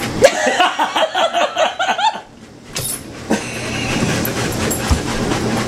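Dogs panting heavily and steadily, with a quick run of short pitched sounds through the first two seconds.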